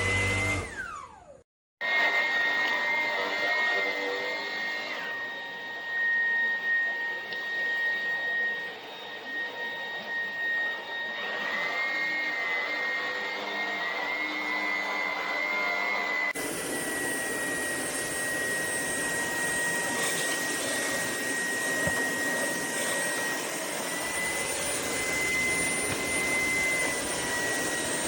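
Shark cordless stick vacuum's motor running with a steady high whine over a rush of airflow, starting about two seconds in after a short gap. The pitch shifts slightly a few times and the sound changes abruptly now and then.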